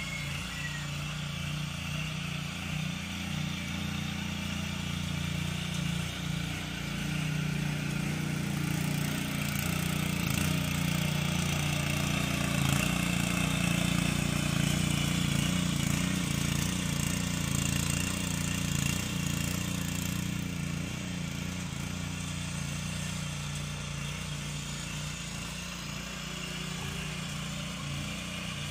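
A 7 hp petrol power weeder's small single-cylinder engine running steadily under load while its tines till dry soil. It grows louder toward the middle as the machine comes closer, then fades a little.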